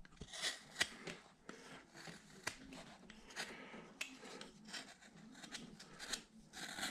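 Carving knife slicing small chips from a wooden carving, making a string of short, sharp, irregularly spaced cuts.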